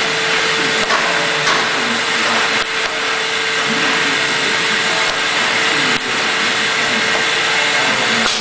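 Large vacuum forming machine running, with the formed plastic sheet still clamped over the mould: a loud, steady rush of air with a constant hum.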